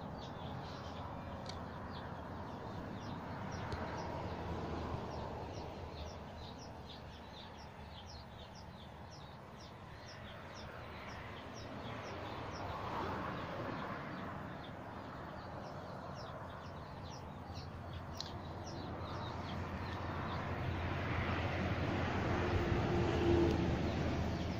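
Small birds chirping over and over above a steady outdoor rushing noise. The rushing noise swells twice, once near the middle and again toward the end.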